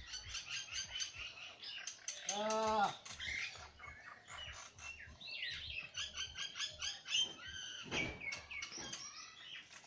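Small birds chirping in quick, repeated short notes throughout, with one short, low pitched call about two and a half seconds in.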